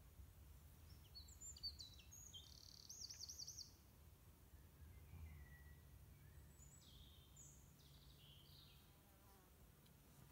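Faint songbird song: two short bursts of high, warbling whistled notes, one about a second in and one past the middle, over a faint low steady hum.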